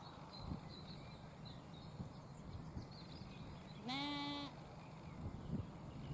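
A sheep bleats once, a single drawn-out call about four seconds in, with faint bird chirps and low outdoor rumble in the background.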